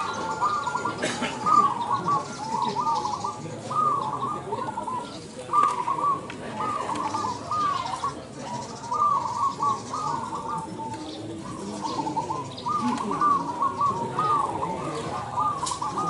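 Many caged zebra doves (perkutut) cooing at once, their repeated short trilled coo phrases overlapping continuously, over low background noise.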